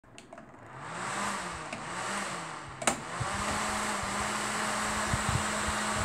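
Microwave oven cooling fan running: a steady rush of air with a low hum that wavers in pitch at first and settles steady after about three seconds. A sharp click just before three seconds in.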